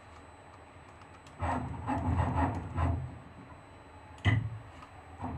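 CNC milling machine's axis drive running as the table is jogged along X, for about two seconds starting about a second and a half in, followed by one sharp click a little after four seconds in.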